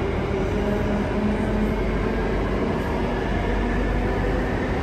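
Circle Line MRT train heard from inside the carriage while running underground: a steady rumble of wheels on rail with a faint whine.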